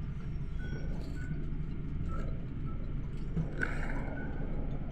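Inside the cabin of a moving Luidor-225019 (GAZelle Next) minibus: a steady low rumble of engine and road noise, with a few faint short sounds above it, one slightly sharper about three and a half seconds in.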